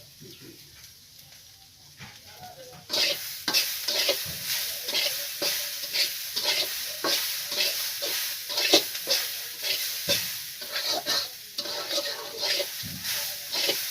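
Food frying in hot oil in a pan, with a utensil scraping and stirring it in quick repeated strokes. The sizzle starts suddenly about three seconds in.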